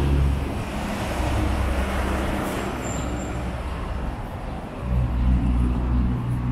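Street traffic: motor vehicles passing on the road, with a low engine hum that fades and then swells again about five seconds in.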